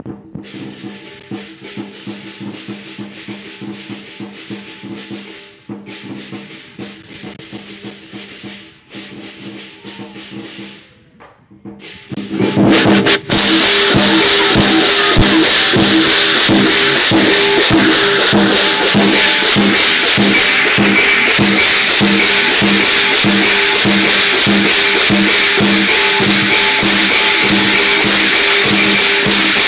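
Lion dance percussion ensemble of drum and clashing cymbals, playing a soft rhythmic beat at first, then breaking into a loud, fast, steady beat about twelve seconds in.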